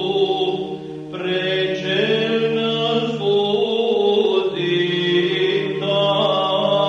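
Background music of slow chanted singing, long held notes that shift every second or two over a steady low drone.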